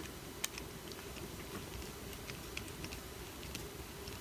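Small screwdriver turning a tiny screw into the plastic chassis of a Sphero SPRK+ robot: faint, irregular ticks and clicks, with one sharper click about half a second in, over a low steady hum.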